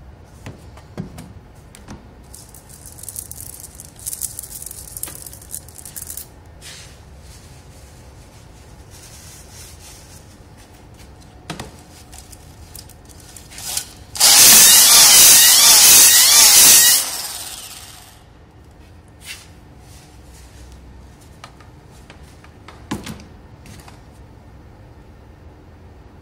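Drill spinning a ball-type flex hone inside a cylinder bore of a Volvo T-5R five-cylinder engine block: a loud whirring scrape for about three seconds, midway through, that then winds down. Quieter handling clicks and rustles come before and after it.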